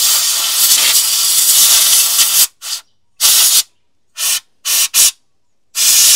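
Compressed air blasting out the inside of an engine's ignition distributor to clear carbon dust: one long blast of hissing air for about two and a half seconds, then five short blasts cut off sharply, and another long blast near the end.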